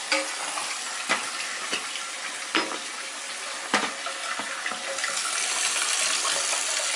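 Dual-flush toilet tank filling through its fill valve with the water supply just turned back on: a steady hiss of running water that grows louder about five seconds in. A few sharp clicks sound over the first four seconds.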